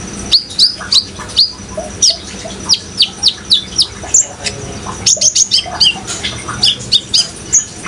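A sunbird (the kolibri ninja of Indonesian bird-keepers) calling in a rapid string of sharp, high chirps, each sliding down in pitch, several a second. A steady hiss of running water sounds beneath them.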